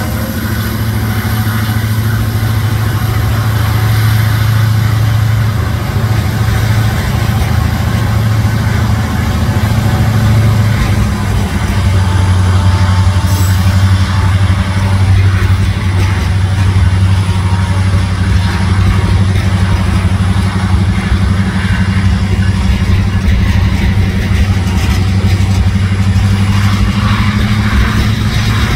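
Freight train passing close by: its diesel locomotives drone heavily, then covered hopper cars roll past with a steady rumble of wheels on rail. The low drone drops slightly in pitch about 11 seconds in, and there is a single sharp click about halfway through.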